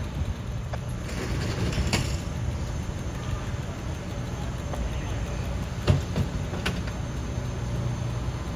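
Fire engine's diesel engine running steadily at the scene, a low rumble while its pump supplies the hose lines, with a few sharp clicks and a knock about six seconds in.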